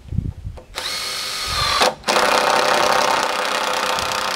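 Cordless drill running under load into a wooden board, after a few soft knocks: a run of about a second, a brief stop, then a longer steady run.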